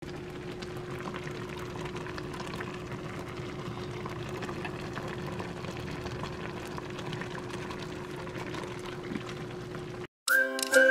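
Squid simmering in liquid in a stainless steel frying pan: a steady bubbling with small pops over a faint low hum. About ten seconds in it cuts off and music with a whistled tune begins.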